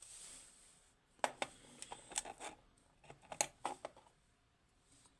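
Small metal parts of a disassembled DOM IX 6KG pin-tumbler lock clicking and tapping as they are handled: two quick clusters of sharp clicks, after a brief soft hiss at the start.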